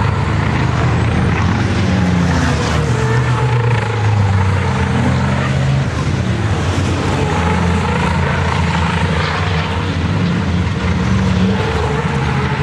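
Several racing trucks' turbo-diesel engines running hard through a corner, one after another, their engine pitch repeatedly rising and falling.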